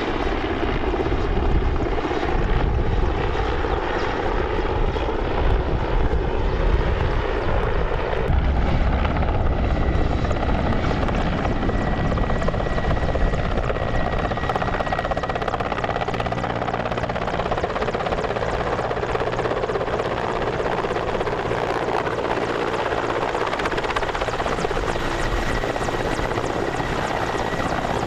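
Mil Mi-17 helicopter flying low and hovering close by, with steady rotor and twin-turbine engine noise.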